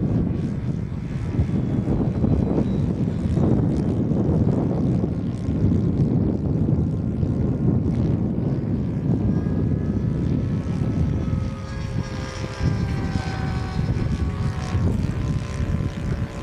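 Radio-controlled model airplane's motor and propeller whining as it flies overhead. The whine is faint at first, comes through more clearly in the second half with a slightly wavering pitch, and sits under heavy low wind rumble on the microphone.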